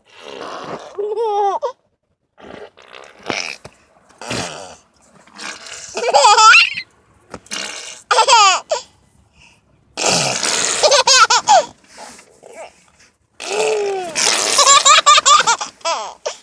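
A baby laughing hard in about six high-pitched bursts, with short pauses between them.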